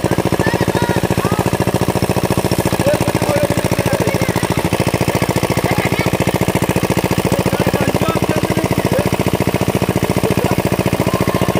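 Small diesel engine of a tubewell pump set running steadily with a rapid, even chugging, driving the pump that feeds water through the delivery pipe.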